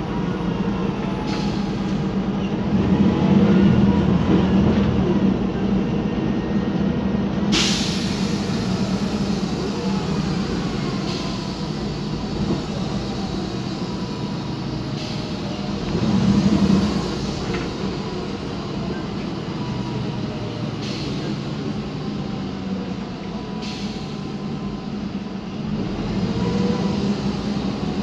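Inside the passenger cabin of a 2010 MAN Lion's Classic city bus on the move: the MAN E2876 natural-gas engine drones steadily, with tones rising and falling as it drives through its ZF six-speed automatic gearbox. A sharp hiss sounds about a quarter of the way in.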